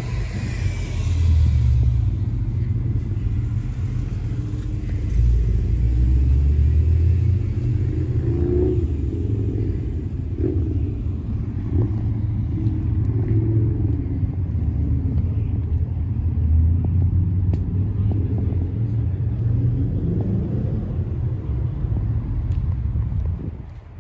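Low, steady rumble of a car running.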